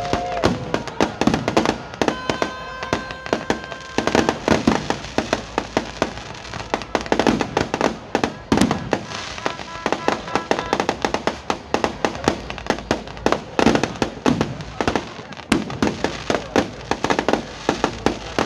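Fireworks going off in quick, irregular succession: many sharp bangs and crackles overlapping throughout. A steady held tone sounds briefly about two seconds in, and again more faintly around the middle.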